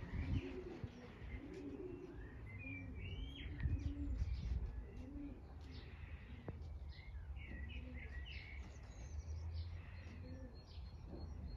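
Pigeons cooing over and over in low, rounded calls, with small birds chirping higher up at intervals.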